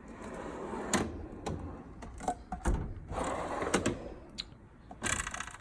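Drawers of a U.S. General steel roller tool box sliding on their slides while metal hand tools rattle and clack inside, with scattered sharp knocks. About five seconds in comes a short, fast run of rattling clicks.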